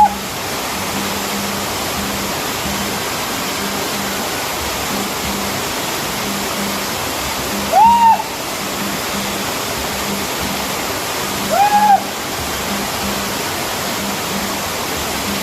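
Waterfall rushing steadily. Two loud, short whistle-like calls, each rising then falling in pitch, cut through about eight and twelve seconds in.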